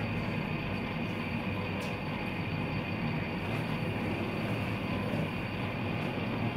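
Fidget spinner spinning on a tabletop, its bearing giving a steady, even whir with a low rumble.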